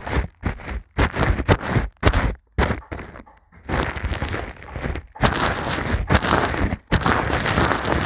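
Brush sweeping and scratching over a foam microphone windscreen right at the microphone: a string of quick, scratchy strokes, a short lull about three seconds in, then denser, continuous rubbing.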